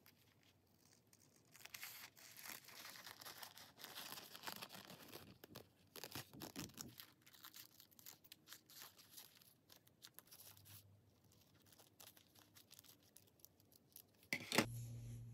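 Paper being handled and worked by hand: faint scratchy rustling, crinkling and tearing in short spells with small ticks, and a sharp knock near the end.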